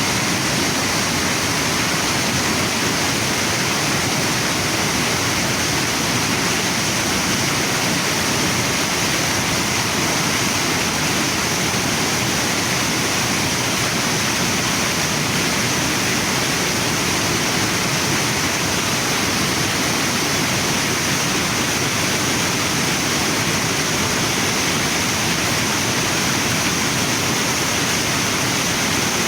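Waterfall and river water rushing in a steady, even wash of noise that never lets up.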